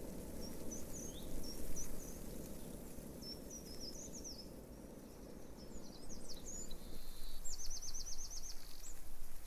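Small birds chirping over a steady low outdoor rumble, with a quick trill of about ten rapid notes near the end.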